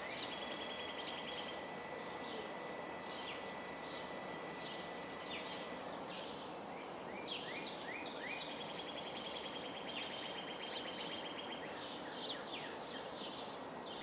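Birds chirping, many short falling chirps and a couple of rapid trills, over a steady background hiss, with a thin steady high tone through about the first half.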